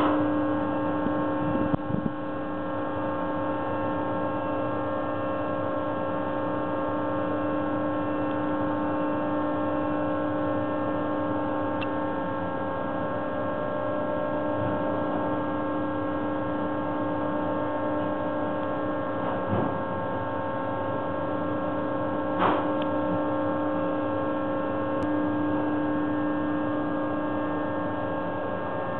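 Steady machinery hum with a strong tone and overtones from a truck dumper tipping a loaded wood-chip trailer, with a few faint knocks.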